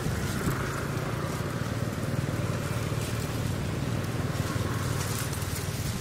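Steady low drone of a running motor, holding an even pitch throughout.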